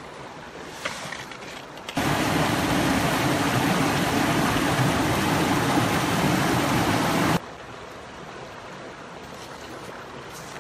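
Shallow mountain river running over rocks, a steady hiss, with a few light clicks from handling a fabric bag's buckle. About two seconds in, the water noise jumps suddenly to a loud, close rush and cuts back just as suddenly some five seconds later.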